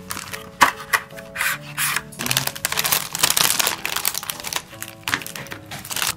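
Clear cellophane packaging crinkling and rustling irregularly as a plastic phone case and paper packets inside it are handled, over background music with a simple melody.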